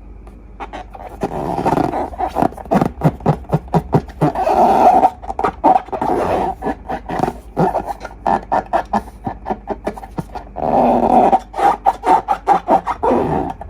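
Rubber balloons and slime being handled: a quick, irregular run of rubbery squeaks and squelches, thickest in two longer stretches near the start and again towards the end.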